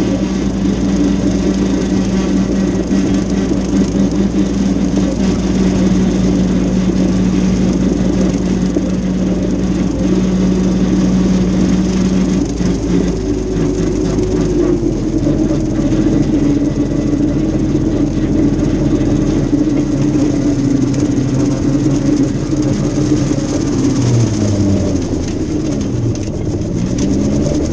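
Mahindra tractor's diesel engine running steadily while pulling a brush hog (rotary cutter) through tall grass. The engine note changes about halfway through, and near the end its pitch sags and climbs back again.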